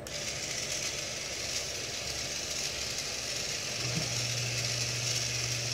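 Battery-powered K'Nex motor switched on and running a K'Nex toy cake mixer, a steady whir of the motor and plastic gears that starts abruptly. A lower steady hum joins in about four seconds in.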